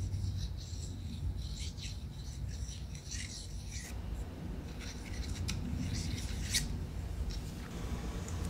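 Chopsticks rubbed and raked through hair: a run of soft scratching strokes with light clicks of the sticks, the sharpest tick about six and a half seconds in.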